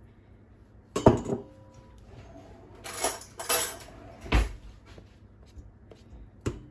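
Spatula scraping soft cheese out of a ceramic bowl into a stand mixer's stainless steel bowl, with the bowls knocking together. There are a few knocks and clinks, the loudest about a second in, a short stretch of scraping around three seconds, a heavier knock just after four seconds and a click near the end.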